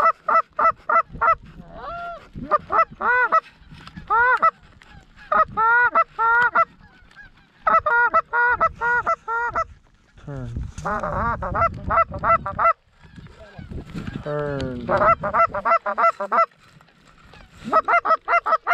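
Canada goose calls blown close by in rapid runs of short clucks and honks, about five or six a second, in bursts, calling to a flock of geese overhead. Around 11 s and again near 15 s a low growled moan rises into the honks.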